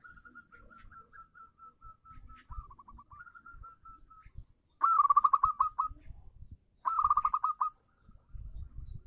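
Zebra dove (perkutut) singing. A soft run of short staccato coos comes first with a brief trill among them, then two loud, rapid trilled bursts of cooing about two seconds apart.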